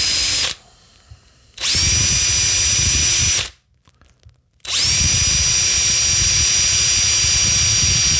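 Cordless drill with a 1.5 mm bit drilling out a hole in a 3D-printed PLA part, in three runs: one that stops about half a second in, a second lasting about two seconds, and a longer one starting past the middle. Each run opens with a whine rising as the motor spins up. Run too fast for PLA, the bit melts the plastic rather than cutting it cleanly.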